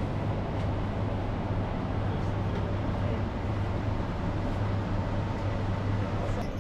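Wall-mounted electric exhaust fan running: a steady low hum under an even rushing noise. A few faint light clicks near the end.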